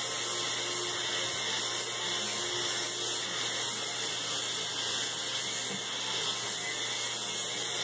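Electric shaver running with a steady, even, high-pitched buzz.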